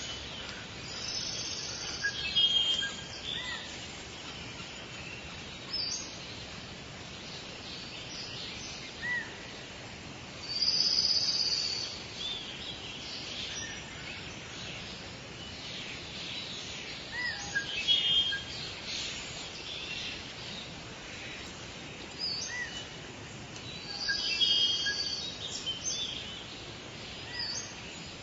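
Forest birds calling and singing in short, high chirping phrases every few seconds, with louder bouts of song about a third of the way in, past the middle and near the end, over a steady background hiss.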